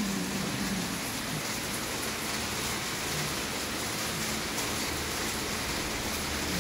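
Curved modular plastic belt conveyor running on its gear motor: a steady, even hiss with no clear rhythm.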